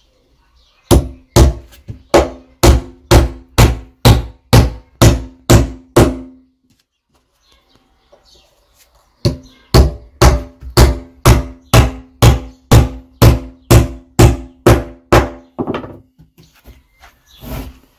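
Steel-headed hammer driving nails into pine deck boards: two runs of steady blows, about two a second, each blow with a short ring. The runs are separated by a pause of about three seconds.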